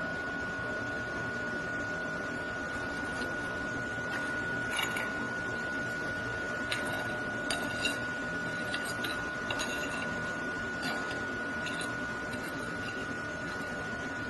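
MIG welding arc running steadily: a constant hiss with a thin steady whine, broken by a few small crackles and ticks of spatter.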